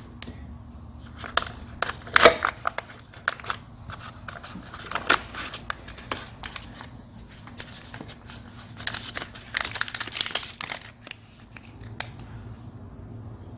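Folded paper crinkling and rustling on and off as it is handled and unfolded, with irregular sharp crackles.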